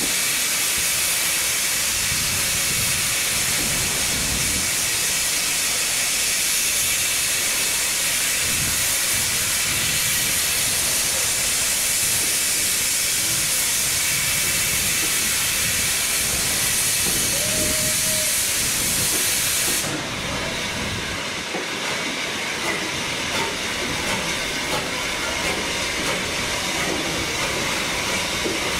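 Steam hissing loudly and steadily from the Jubilee Class 4-6-0 steam locomotive 'Bahamas'. It cuts off suddenly about twenty seconds in. After that the locomotive and coaches rumble quietly as they move slowly along the platform.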